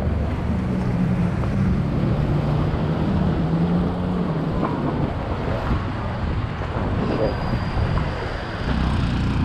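Street traffic on a wet road: a vehicle engine running low for the first four seconds or so, fading into steady road noise.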